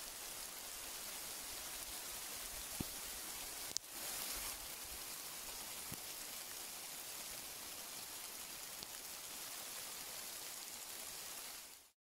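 Steady rain falling on a pine forest: an even hiss, with a few single sharp taps, the loudest a little before four seconds in.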